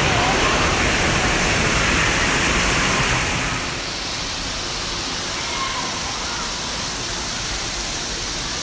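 Steady rushing and splashing of water in an indoor water park, easing slightly about three and a half seconds in.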